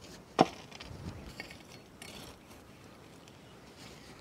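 A metal ladle scooping hot embers and ash from a wood fire and tipping them onto an aluminium pot lid. There is one sharp knock about half a second in, then soft scraping and gritty rustling.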